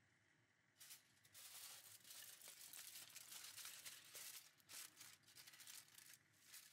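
Aluminium foil crinkling and crackling as hands crumple and press it into a cover over a skillet, starting about a second in and stopping near the end.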